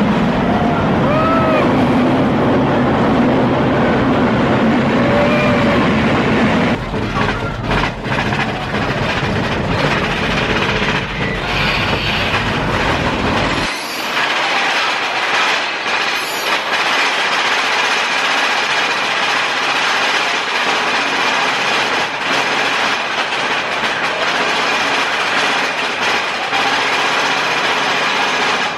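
Big Thunder Mountain Railroad mine-train roller coaster running along its track: a continuous loud rattle and rumble of the train. A heavy low rumble drops away abruptly about fourteen seconds in.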